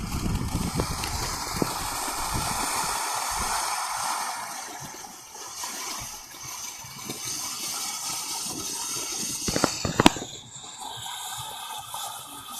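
Firework burning with a steady hiss for several seconds, then fading, with scattered small pops and one sharp bang about ten seconds in.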